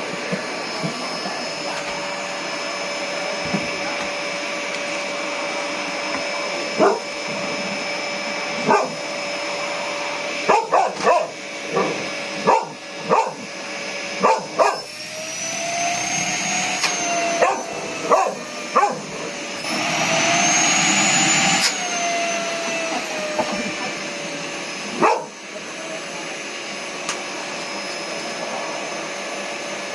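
Vacuum cleaner running steadily while a small dog barks at it in short, sharp barks, scattered and then clustered through the middle. Twice the vacuum's pitch rises for about two seconds before settling back.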